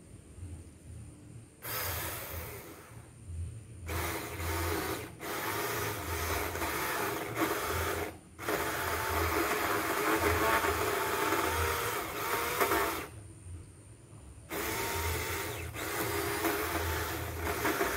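Bull-brand 4-inch cordless mini chainsaw running in stretches as its chain cuts into an old water apple tree trunk, the motor stopping briefly several times and starting again.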